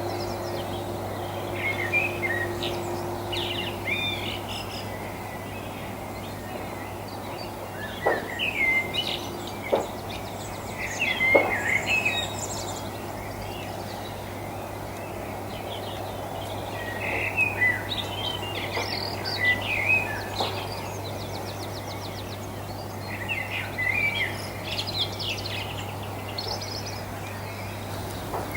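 Garden songbirds singing, short twittering phrases coming in bursts every few seconds.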